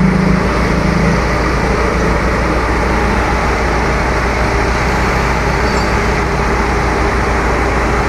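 Steady motor-vehicle engine and road noise with a constant low rumble. A motor scooter passes by in the first second.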